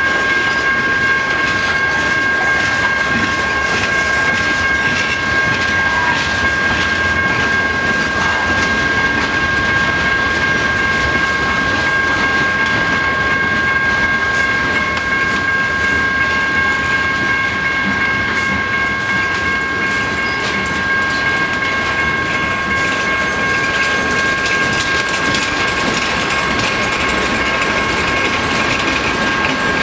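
Freight cars of a slow-moving manifest train rolling by, wheels clacking over the rail joints. A steady high-pitched ringing tone sounds over the rumble throughout.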